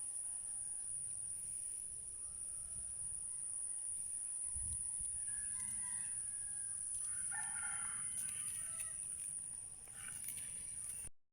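A rooster crowing, with shorter chicken calls near the end, over a steady high-pitched whine.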